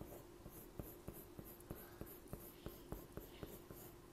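Pencil drawing on paper: faint scratching strokes with light ticks, a few each second, over a faint steady hum.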